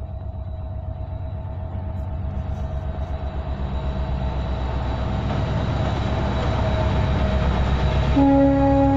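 WDG4 diesel-electric locomotive (EMD 16-cylinder two-stroke diesel) running under load as it approaches, its engine rumble and wheel noise growing steadily louder. About eight seconds in, the locomotive's horn sounds for about a second.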